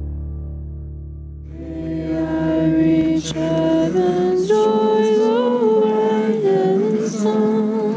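The held last chord of background music fades out. From about a second and a half in, a group of people sing together in unison, unaccompanied, holding long notes.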